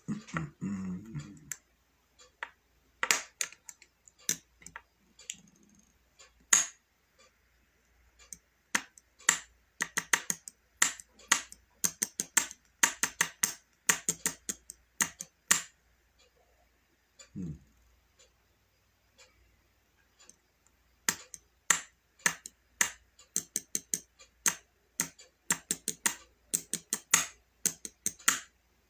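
Typing on a keyboard: runs of quick sharp key clicks, several a second, broken by pauses of a few seconds.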